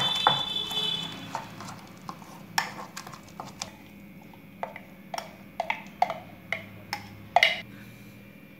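A plastic spoon scraping and knocking against a steel mixer jar as thick chutney is scooped out into a bowl. Irregular sharp clicks and taps, with a brief metallic ring after a knock at the start.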